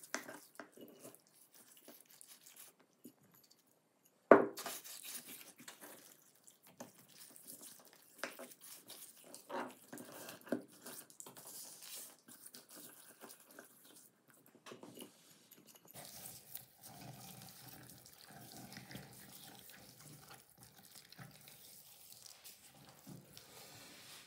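Hands rubbing salt into a raw whole duck on a wooden cutting board: wet rubbing and slapping of skin and meat with scattered clicks, and one loud thump about four seconds in. A faint steady hum comes in past the middle.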